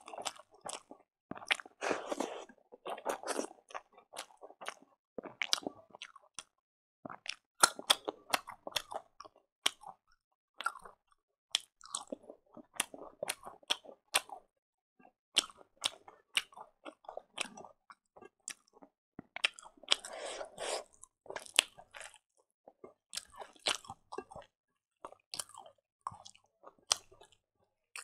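Close-miked chewing and crunching of a meal of fried silkworm pupae with rice and leafy greens. It comes as many short, irregular crunches and mouth clicks.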